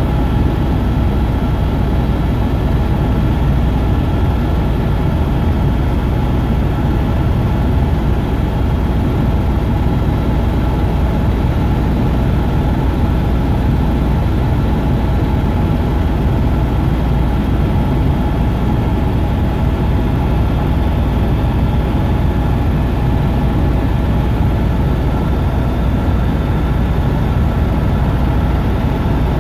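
Helicopter in flight, heard from inside the cabin: a loud, steady rotor and engine drone with a few steady high tones above it.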